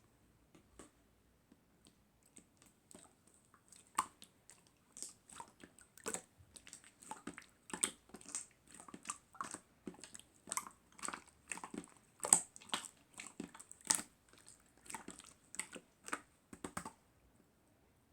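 Clear slime being pressed and squeezed by hand, making a run of small wet clicks and pops, a few a second, sparse at first and then steady from about four seconds in until shortly before the end.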